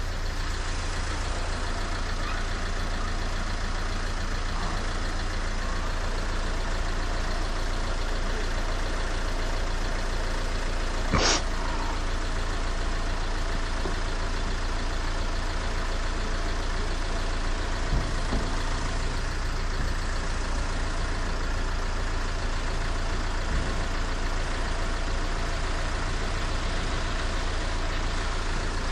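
Van engine idling steadily. A single sharp knock comes about eleven seconds in.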